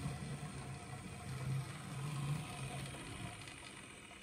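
Rivarossi model steam locomotive running on the track: its motor in the cab whirs with a low hum, the usual Rivarossi motor noise. The sound is loudest around the middle and fades toward the end.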